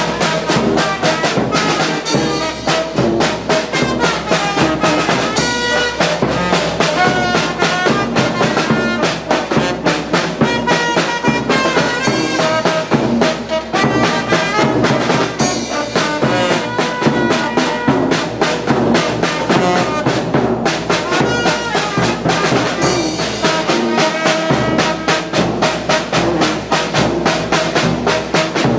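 Live brass band playing: trumpets, trombones and a sousaphone over a bass drum, cymbal and snare drum keeping a steady beat.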